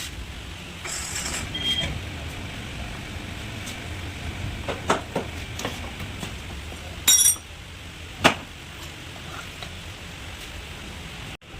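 Workshop clatter: a handful of sharp metallic clinks and knocks from tools or metal parts over a steady low hum. The loudest clink, about seven seconds in, rings briefly.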